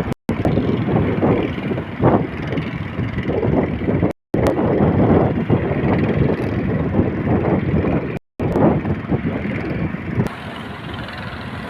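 Rough sea heard aboard a small boat: loud wind buffeting the microphone and rushing water, surging irregularly. Broken by brief silent cuts about every four seconds.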